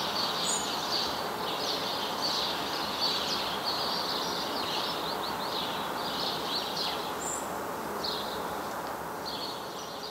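Small birds chirping and twittering in short runs over a steady hiss of distant outdoor background noise.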